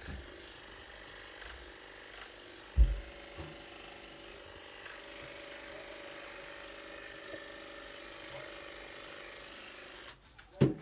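A steady low mechanical hum, broken by a dull thump about three seconds in and another near the end.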